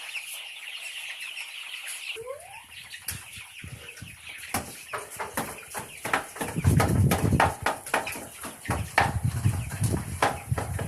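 A flock of chickens in a poultry shed clucking and chattering steadily, with many sharp clicks and wing flaps from about three seconds in. A loud low rumble comes in around the middle and again near the end.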